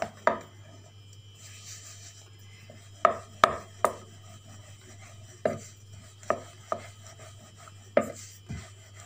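Wooden rolling pin knocking and rolling on a wooden board as small balls of flour-dusted dough are rolled flat: a series of sharp wooden knocks at uneven spacing, three close together about three seconds in, with a faint steady hum underneath.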